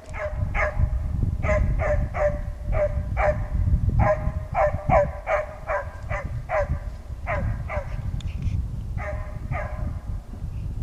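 Petit basset griffon vendéen hound giving tongue in pursuit of game: a run of short, yelping bay notes, about two a second, with a brief pause near the end, over a low rumble.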